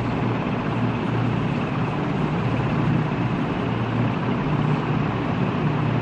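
Steady background noise: an even low hum with hiss over it, unchanging and without distinct events.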